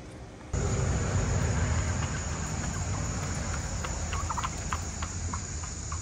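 Outdoor farmyard ambience that starts abruptly about half a second in: a steady low rumble, with short quick calls from farm animals about four seconds in and again near the end.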